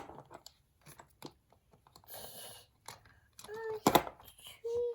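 Scattered light clicks and taps of small toys being handled, with one sharper click near the end and a short hiss about two seconds in. Brief child vocal sounds come in near the end.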